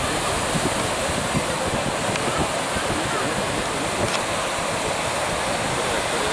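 Sea surf breaking on shoreline rocks and washing in foam, a steady rushing noise, with wind buffeting the microphone.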